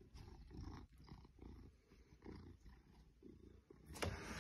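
Maine Coon cat purring faintly in low, repeated pulses. A sharp knock comes near the end.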